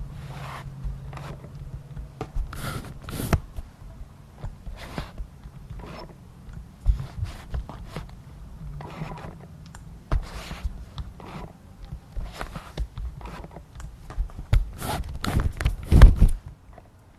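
Tamron 24-70mm f/2.8 Di VC USD G2 lens autofocus making short, irregular squeaks and scratchy noises, a strange noise that points to a fault in the focus drive. A low steady hum runs under them for the first ten seconds or so, and the loudest cluster comes near the end.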